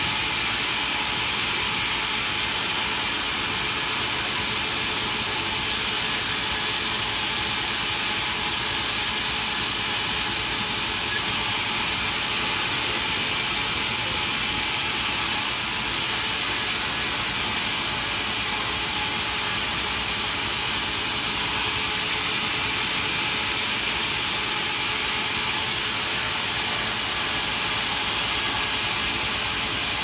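Sawmill band saw running and ripping a wooden plank lengthwise: a steady, even hiss-like noise that keeps up without a break.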